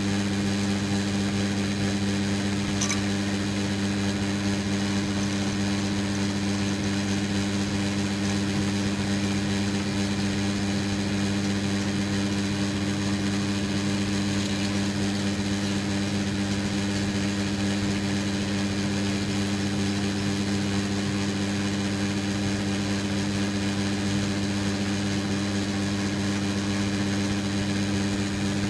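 Metal lathe running with a steady hum while a boring bar cuts inside the outlet hole of an air compressor pressure switch, boring it out to the root diameter of a 1/4 BSP thread.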